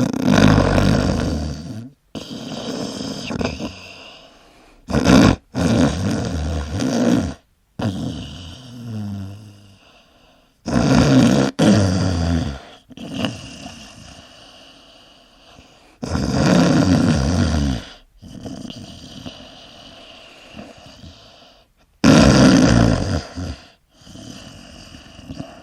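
A person snoring, very loud: long, harsh snores about every five to six seconds, with quieter breathing between them.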